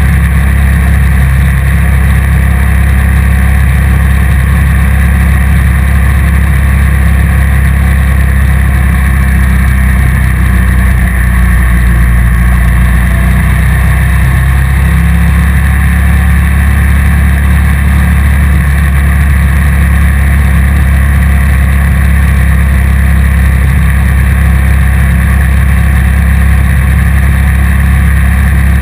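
Motorcycle running at a steady cruising speed, mixed with heavy wind rumble on the bike-mounted camera's microphone. Its level barely changes.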